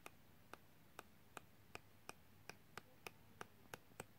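Pages of a small scrapbook paper pad flicking off the thumb one after another as it is leafed through: faint, quick paper snaps, about three a second.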